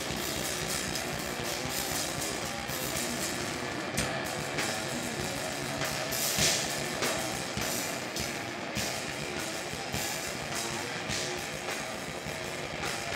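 Grindcore band playing live: distorted electric guitar over a drum kit.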